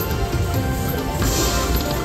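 Aristocrat slot machine playing its free-spin bonus music and electronic effects as the reels spin, with a brighter high ringing joining about a second in.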